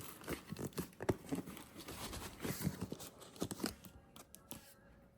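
Packaging being torn open and crinkled by hand, a dense run of short crackles and scrapes that dies down about four seconds in.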